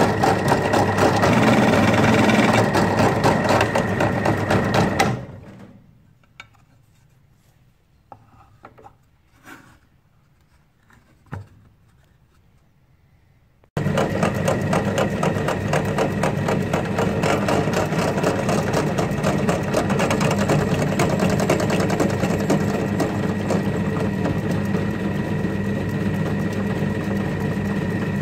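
Bench drill press motor running steadily with a constant high whine while drilling into scrap wood, then winding down about five seconds in. After a quiet stretch with a few light knocks, it starts up abruptly and runs steadily again as the bit is brought down to drill an M5 hole into a cast lead former.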